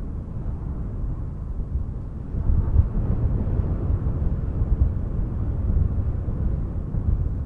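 Wind blowing: a steady, low rushing noise that grows louder about two and a half seconds in and keeps gusting.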